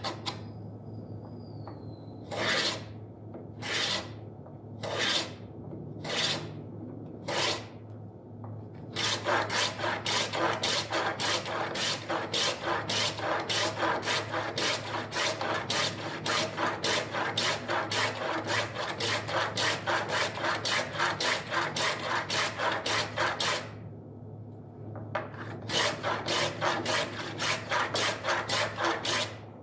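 Hand plane shaving along the edge of a hardwood board, cutting a rebate: first five slow separate strokes, then quick short strokes about three a second, a brief pause, and more quick strokes near the end. A steady low hum runs underneath.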